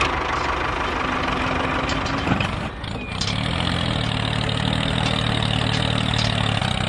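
Engine of a miniature DIY tractor running steadily, with a brief dip and a change to a lower, steady note about two and a half seconds in.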